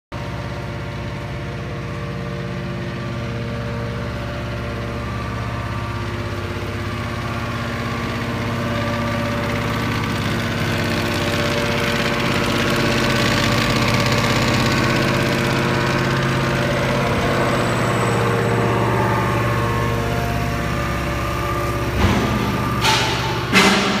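Electric motor and hydraulic pump of a scrap metal baler running steadily, a loud hum with several steady tones. A few sharp knocks near the end.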